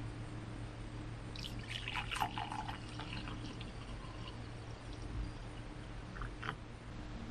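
Hot coffee poured from a carafe into a glass mug. It starts about a second and a half in with a splashing pour that is loudest for the first two seconds, then fades to a quieter stream as the mug fills, over a low steady hum.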